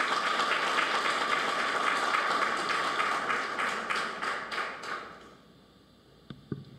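Audience applauding in a room. The applause thins into a few separate claps and dies away about five seconds in, followed by a couple of faint knocks.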